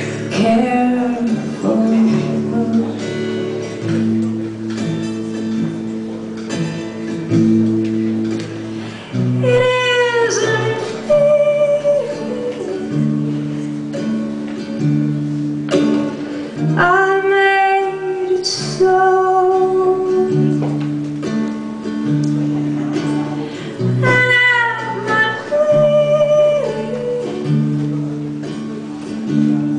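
Steel-string acoustic guitar played live in a steady chord pattern, with a woman's voice singing three long, bending notes over it.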